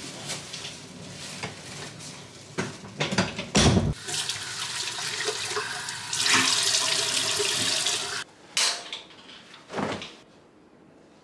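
Bathroom tap running into a sink for about two seconds while hands splash water, with a few loud knocks before it and a couple of short bumps after.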